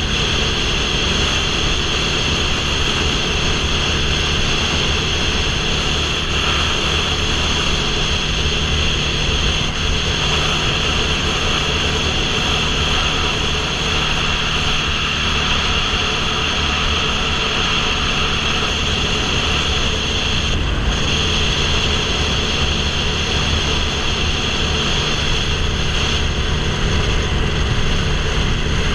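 Motorcycle cruising at highway speed: a steady rush of wind over the microphone, with the engine and tyre noise running underneath.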